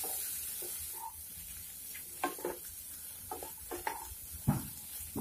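Soya chunks frying in oil in a non-stick kadai, with a faint steady sizzle, while a spatula stirs them, making a scatter of short scrapes and knocks against the pan, most of them in the second half.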